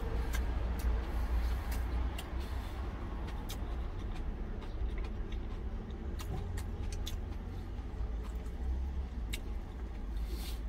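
Steady low vehicle rumble, like an idling engine, under a person chewing food, with scattered light clicks of wooden chopsticks against a stainless steel food container.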